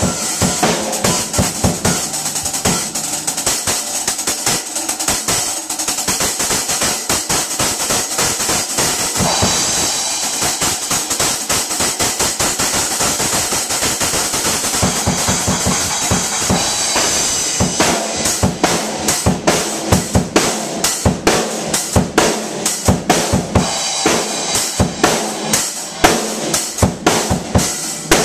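Acoustic drum kit played fast: dense bass drum and snare strokes under a continuous cymbal wash. About 17 seconds in, the pattern changes to more widely spaced, sharply accented hits.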